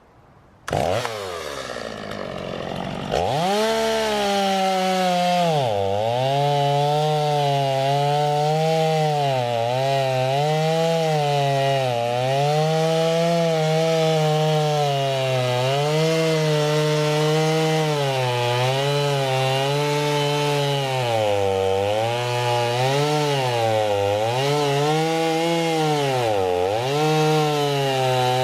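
Chainsaw starting up about a second in, running briefly at a lower speed, then revving up near the three-second mark and running at high speed. Its engine pitch dips and recovers over and over as the chain bogs and frees while cutting into a large round hay bale.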